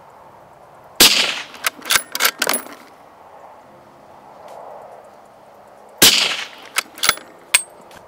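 Two shots from a Weatherby Mark V Backcountry Carbon 2 bolt-action rifle in 6.5 Creedmoor, about five seconds apart. Each shot is followed by a few quick metallic clacks as the bolt is worked to chamber the next round.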